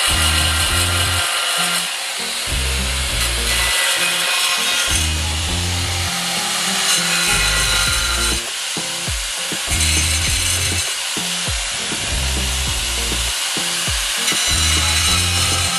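Angle grinder with a cutting disc cutting through ceramic tile: a steady high grinding hiss. Background music runs underneath.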